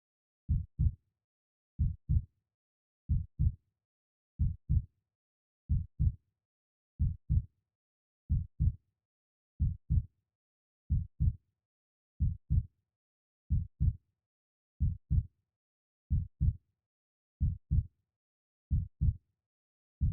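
A slow, steady heartbeat: a lub-dub of two deep beats in quick succession, repeating about every 1.3 seconds (roughly 46 beats a minute), with silence between the beats.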